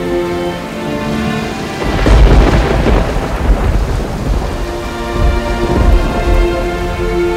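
Thunderstorm sound effects in a film soundtrack: steady rain with two heavy rolls of thunder, one about two seconds in and another about five to six seconds in. Held music notes sound beneath them.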